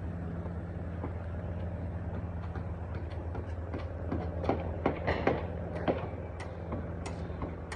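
A steady low engine hum, with a cluster of sharp knocks and clicks about four to six seconds in.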